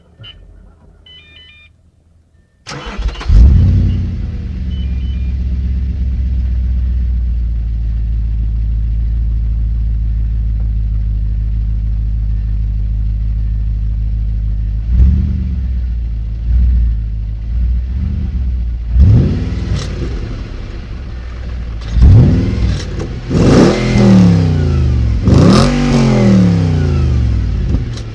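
A 2007 Audi RS4 B7's 4.2-litre V8 on the stock exhaust. A few faint chime beeps come first. About three seconds in the engine starts with a flare of revs, then settles into a steady idle. After a brief blip it is revved hard several times in quick succession, each rev rising and falling in pitch.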